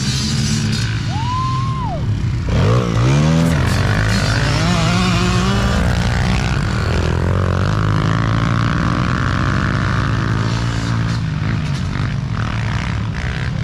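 Several small youth dirt bikes running together across a field, their engines revving up and down over one another. There is a sharp rev a little over two seconds in, then a steady mix of engine drone.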